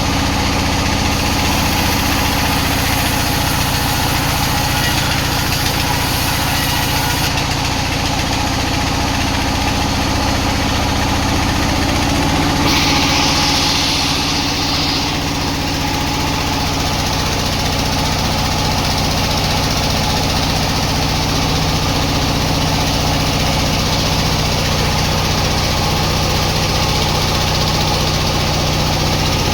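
Sawmill machinery running steadily with a constant engine-like hum, and a short hiss about halfway through.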